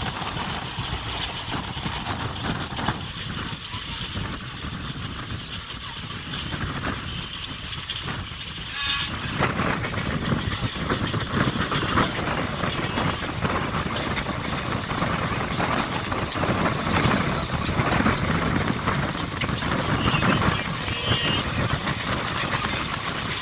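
Passenger train running on the track, heard from on board: a steady rumble and clatter of wheels on rails with rushing air. It grows louder about nine seconds in.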